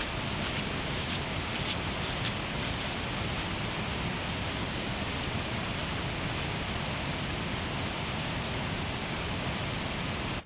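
Steady, even rushing of fast-flowing water, cutting off suddenly at the very end.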